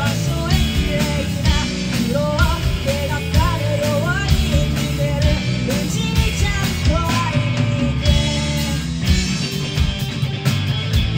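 Rock band playing live: electric guitar, bass guitar and drum kit with a lead vocal. The singing stops about eight seconds in and the band plays on.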